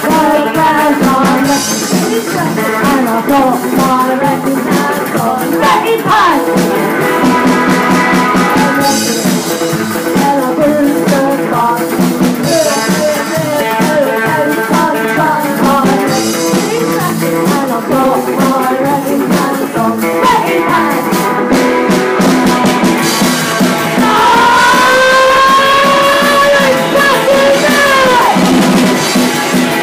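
Live band playing loud: double bass, electric guitar and drum kit, with sung vocals. Near the end, one long held note with a slight bend stands out for a few seconds.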